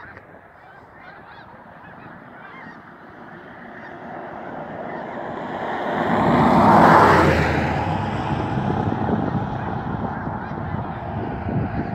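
A large flock of geese calling overhead, a dense chorus of honking that swells to its loudest about seven seconds in and stays loud after.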